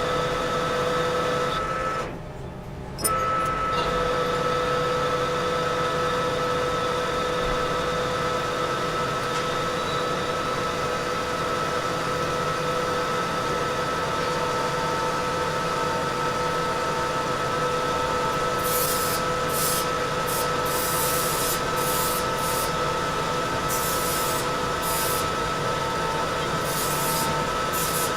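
Metal lathe running steadily with a constant whine while turning a steel shaft. It drops off briefly about two seconds in. From about two-thirds of the way through, an intermittent high hiss of cutting comes and goes.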